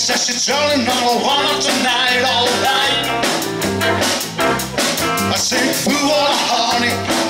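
Live rock band playing: electric guitars and a drum kit keeping a steady beat, with a man singing.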